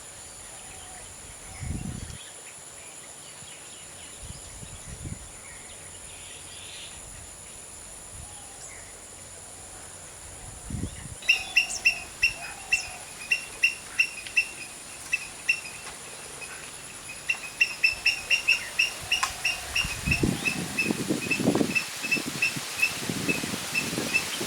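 Outdoor bird ambience. About halfway in, a small bird starts a long run of short, sharp, high chirps, about two to three a second, which quicken toward the end. Low rumbling bumps come in over the last few seconds.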